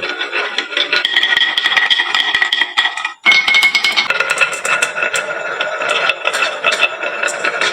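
Many glass marbles rolling and clacking down a wooden marble run, a dense stream of clicks over a steady ringing whir from the rolling. The sound cuts out for an instant about three seconds in, then carries on at a different pitch.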